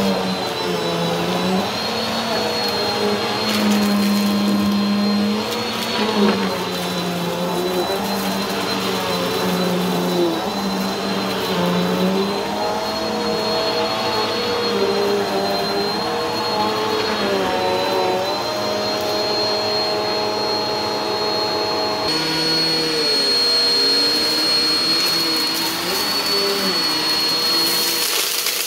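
Upright vacuum cleaners running steadily over carpet, a green Bissell and then a Black & Decker upright, with a high motor whine and lower tones that waver in pitch as the machines are pushed. About 22 seconds in the sound changes abruptly to a different machine note.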